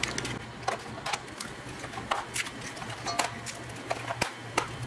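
Eggs being cracked one after another on the rim of a stainless steel mixing bowl: a string of short, sharp taps and shell cracks spread unevenly.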